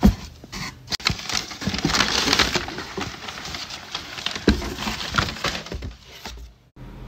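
Packaging being handled and pulled open: a dense, irregular crinkling and crackling, opening with a sharp knock and dying away shortly before the end.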